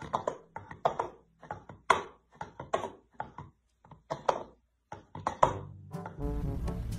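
Orange plastic bowl knocked and rocked on a hard floor by a cat's paw: an irregular run of quick hollow knocks, roughly three a second, some ringing briefly. Music comes in about six seconds in.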